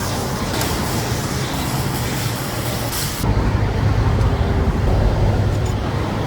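Minsk 125's two-stroke single-cylinder engine running steadily, with an abrupt change in the sound about three seconds in.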